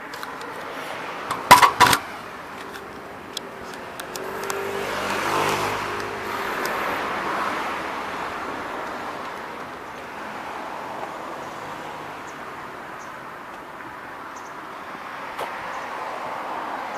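A few sharp metallic clinks of hand tools on the battery terminal clamps about a second and a half in. Then a passing vehicle's road noise swells and slowly fades over several seconds.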